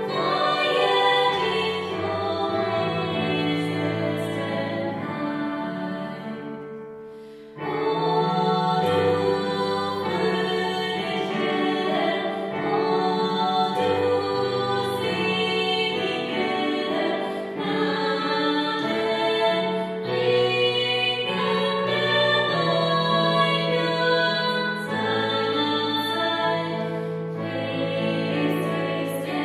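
Two women singing a German Christmas carol with digital piano accompaniment. The music fades into a brief pause about seven seconds in, then comes back in at once and carries on.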